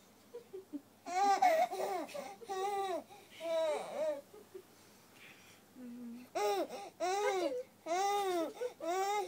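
Baby laughing in short, high-pitched squeals that rise and fall. There are two runs of squeals with a pause in the middle.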